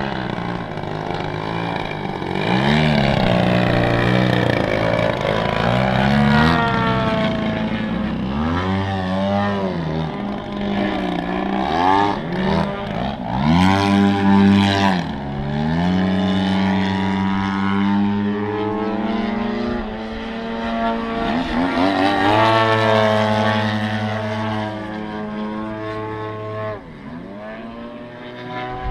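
Engines and propellers of two giant-scale Extra 330SC radio-control aerobatic planes flying overhead, their pitch rising and falling again and again as they throttle up and down through manoeuvres and passes. The sound dips briefly near the end.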